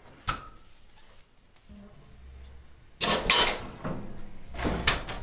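Metal doors and latches of a wood-burning cookstove being worked: a sharp latch click just after the start, then a loud clattering scrape about three seconds in as a stove door is swung open, and another clank near the end.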